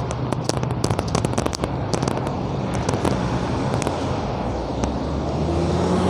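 Road traffic with a motor vehicle's engine passing close, louder near the end. Through the first half there are irregular sharp crackling clicks.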